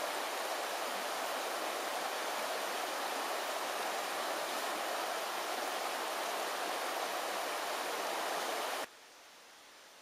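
Kiyotaki River water rushing steadily, a dense, even sound of flowing water. It cuts off suddenly about a second before the end, leaving only a faint hiss.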